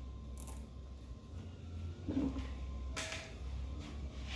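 A plastic zip tie being fastened around wiring: a few faint clicks and rustles of handling, over a low steady hum.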